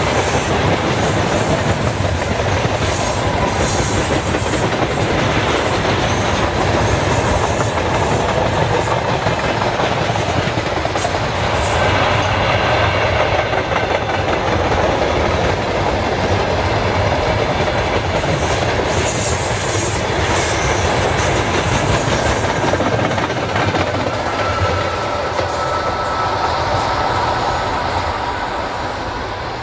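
Freight train of tank cars and gondola wagons rolling past, steel wheels clattering over the rail joints. The sound fades near the end as the last wagon goes by.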